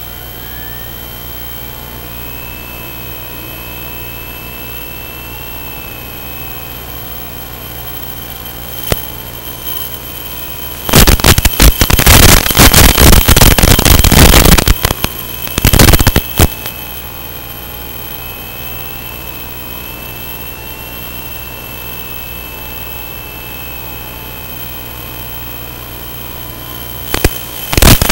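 Hiss from an analog FPV video receiver's audio channel, with a faint whine that drifts slowly in pitch. Loud crackling static breaks in about eleven seconds in and lasts some four seconds, comes again briefly a little later, and returns near the end.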